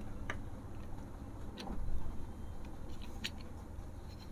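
About three light metal clicks as a motorcycle clutch assembly is pushed and seated into its clutch basket on a Bajaj Discover 150 engine, over a low steady background rumble.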